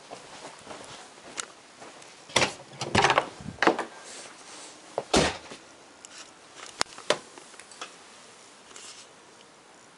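A string of knocks and clatters, bunched a couple of seconds in and again about halfway, then a few lighter clicks.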